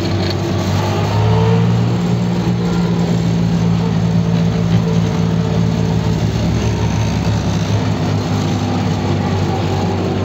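Goldoni Transcar 60 SN tractor's engine running as the machine drives along a road, heard from inside its cab. A steady engine note that rises slightly about a second in, then holds.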